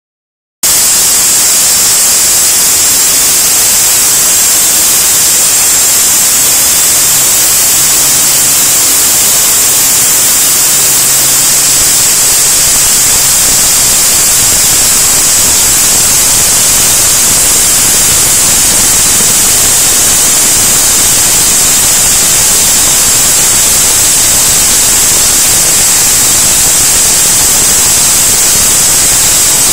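Automatic band saw blade cutting through two large round aluminium bars: a loud, steady hiss with a bright high edge, starting a moment in and holding unchanged.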